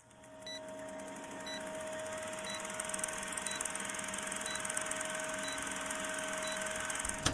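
Old-film countdown sound effect: a film projector rattling with a steady hum, and a short high beep once a second as the numbers count down. It fades in over the first couple of seconds.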